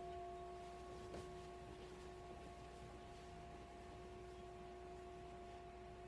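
Faint, steady ringing drone of three held tones, one low and two higher, that neither swells nor fades, with a faint tap about a second in.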